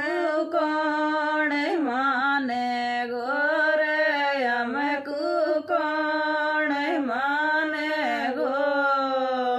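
A woman singing a Rajasthani folk song unaccompanied, drawing out long, wavering notes between short breaths.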